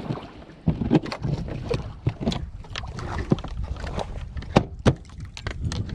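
Small wooden outrigger fishing boat at sea: a steady low rumble of wind and water against the hull, with many sharp clicks and knocks as a plastic tackle box and a metal jig are handled aboard.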